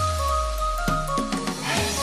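Background music: sustained melodic tones over a bass note that slides down and then holds, with a rising sweep near the end.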